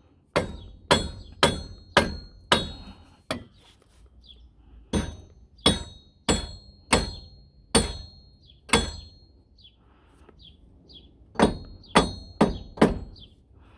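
Sledgehammer striking the rusted wheel hub of a Kia Sedona, about sixteen ringing metal-on-metal blows, roughly two a second with a short pause, knocking rust loose to free the seized hub.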